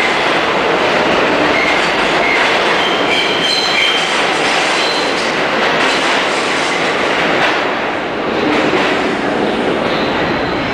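New York City subway train running through the station, a loud steady rumble of wheels on rail with brief high-pitched wheel squeals in the first few seconds.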